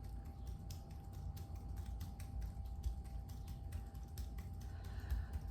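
Fingertips tapping rhythmically on the face and body in EFT tapping, a run of light taps several times a second over a low, steady hum.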